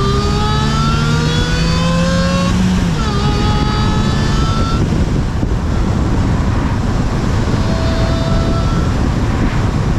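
Supercharged 2009 Suzuki Swift Sport's 1.6-litre four-cylinder pulling hard, the engine and supercharger whine rising in pitch. The pitch drops at a gear change about three seconds in, climbs again, then settles into a steady loud run.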